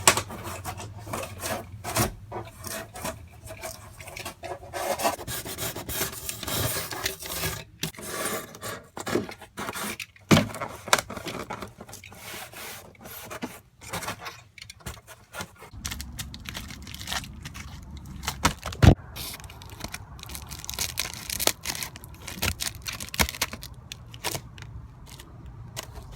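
Rigid foam board insulation being cut and handled: a run of irregular scratchy, rubbing strokes with sharp knocks between them. A steady low hum comes in a little past the middle.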